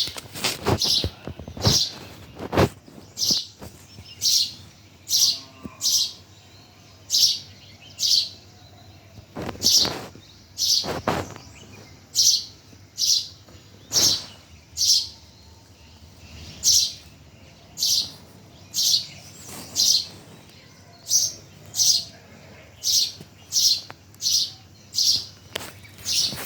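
A bird chirping over and over, short, loud, high calls coming about once a second, with a few sharp knocks among them.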